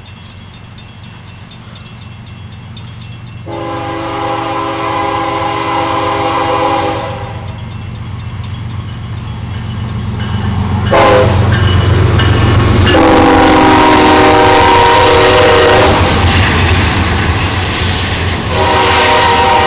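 BNSF diesel locomotives' air horn sounding repeated blasts as an intermodal piggyback train approaches and passes: a long blast after a few seconds, a brief one just past the middle, another long one soon after, and a fourth starting near the end. The diesel engines' rumble and wheel noise grow loud as the locomotives go by in the second half.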